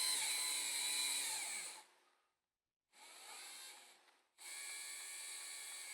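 Electric drive motors, driven through a Sabertooth motor controller, whirring in three separate runs: a louder run that stops just under two seconds in, a short quieter one around three seconds, and another that starts about four and a half seconds in.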